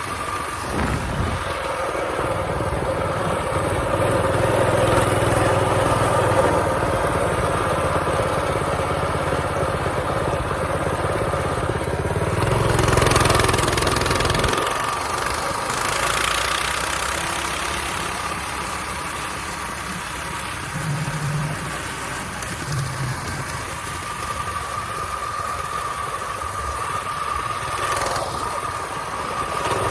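A mini bike's small engine running during a ride, its sound swelling and easing with the throttle. It is loudest about halfway through, then drops back.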